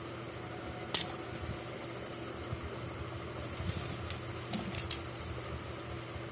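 Handling noises: a sharp click about a second in, then a few lighter clicks and scrapes, over a steady low hum.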